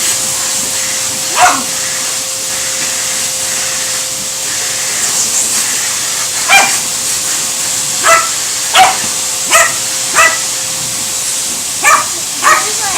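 A dog barking in short, separate barks at a running vacuum cleaner: one bark about a second and a half in, then a run of about seven from the middle onward. The vacuum's steady hum continues underneath.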